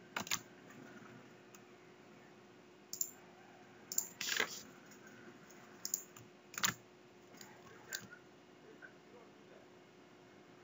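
Scattered computer keyboard keystrokes: single sharp taps a second or more apart, with a short cluster about four seconds in.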